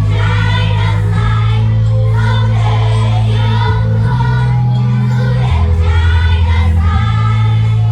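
A group of children singing a Vietnamese song together over a recorded backing track, with a loud bass line that steps from note to note every second or so.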